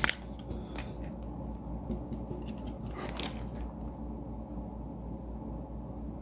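Handling noise from makeup items: a few sharp clicks right at the start, then a short scraping rustle about three seconds in, over a low steady hum.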